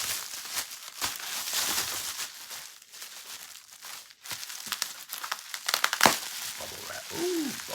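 Packaging crinkling and rustling as it is handled and unwrapped, with irregular crackles and sharp clicks; the loudest click comes about six seconds in. Near the end a short tone rises and falls.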